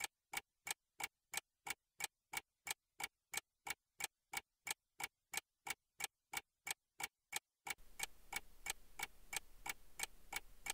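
Twin-bell alarm clock ticking steadily, about three ticks a second. A faint steady hiss of room tone joins the ticks nearly eight seconds in.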